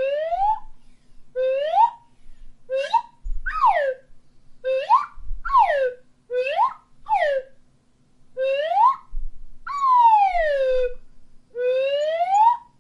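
Slide whistle playing a string of quick swoops, some sliding up and some sliding down, each half a second to a second long with short gaps between. The longest is a slow downward slide near the end.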